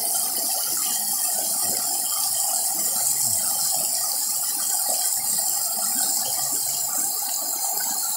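River water rushing and churning over rocky shallows, a steady crackling hiss.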